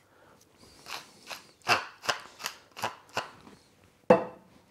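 A wooden pepper mill grinding black pepper onto pigeon breasts, a quick run of about eight short rasping twists, then a single sharp knock on the counter about four seconds in.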